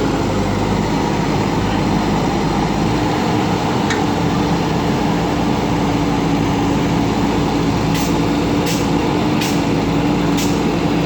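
JCB backhoe loader's diesel engine running steadily under working load, its note stepping up slightly about three seconds in. Several short sharp knocks come near the end.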